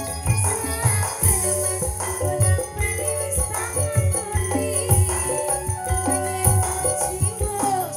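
Live campursari music from a Javanese gamelan ensemble, with steady drum beats about twice a second under melodic lines and a bright, constant jingling on top.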